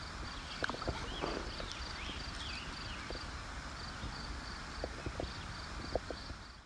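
Outdoor ambience with birds: a few short gliding whistled calls in the first half, a high chirp repeated about three times a second, and a few faint knocks.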